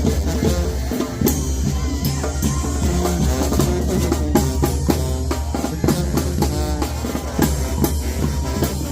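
Sinaloan brass band (banda sinaloense) playing live: brass lines over steady bass drum and snare beats.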